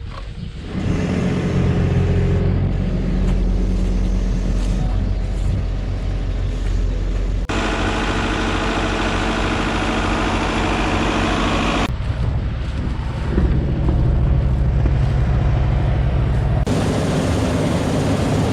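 Heavy farm machinery engine running steadily, in several spliced clips: the sound changes abruptly about seven and a half, twelve and seventeen seconds in.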